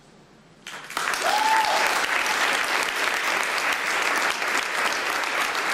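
Audience applause breaking out suddenly just under a second in as the dance piece ends in blackout, then holding steady. One short rising cheer sounds above the clapping about a second and a half in.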